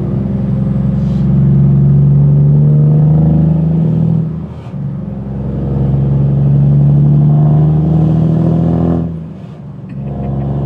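Scania truck's diesel engine, heard from inside the cab, pulling hard up through the gears. Its note climbs steadily, drops back at a gear change, climbs again, and drops at a second shift near the end.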